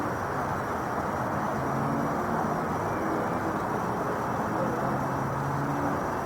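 Steady machine running noise, an even rumble and hiss with no breaks, with faint voice-like tones in the background.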